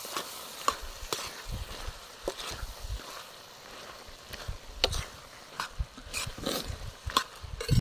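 A steel ladle scraping and knocking irregularly against a large iron kadai as chicken fry is stirred, over a steady sizzle from the pan.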